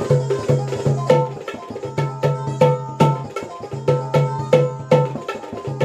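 Dholki, a two-headed barrel drum, played in a lavani rhythm: a brisk, even run of sharp, ringing strokes over a low, booming bass.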